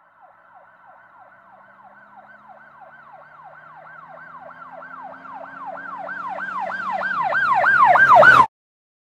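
Emergency vehicle siren in a fast yelp, its pitch swinging up and down about three times a second, growing steadily louder as it approaches, with a low vehicle rumble beneath. It cuts off abruptly near the end.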